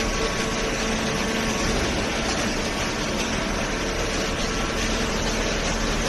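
Hydraulic baler's power unit, its electric motor and hydraulic pump running steadily with an even mechanical hum and a couple of held tones.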